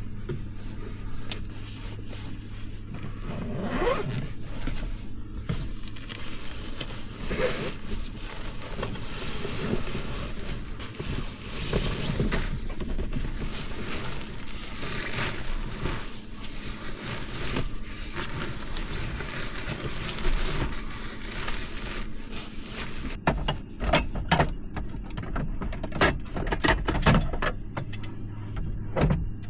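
A steady low hum under rustling and scraping handling sounds, with a run of sharp clicks and knocks in the last several seconds.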